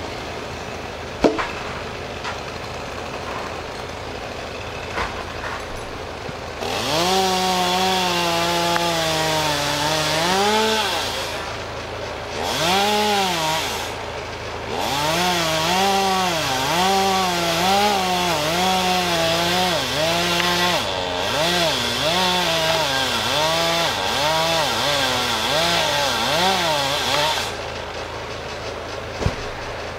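Chainsaw cutting through a maple trunk: it idles for the first few seconds, then from about seven seconds in it is run at full throttle, its pitch repeatedly sagging and recovering as the chain bites under load, with a few brief let-offs. A sharp thump about a second in as a cut log section hits the ground.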